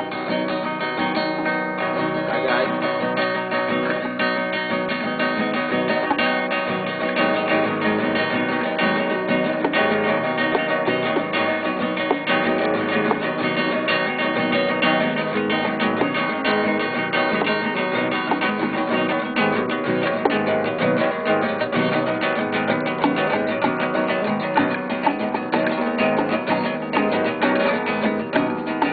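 Acoustic guitar being played continuously, notes plucked in quick succession.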